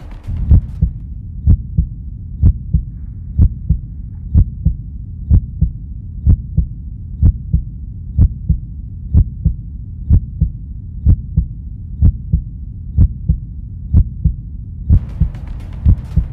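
Heartbeat sound effect: a low double thump about once a second over a steady low drone, a suspense cue in a film soundtrack. A higher hiss-like layer joins near the end.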